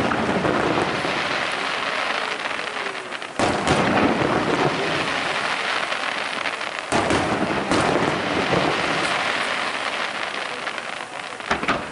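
Aerial firework shells bursting: sudden booms about three and a half seconds in, twice around seven to eight seconds, and again near the end. Each boom is followed by a long crackling, rain-like hiss from the glittering stars as they burn out.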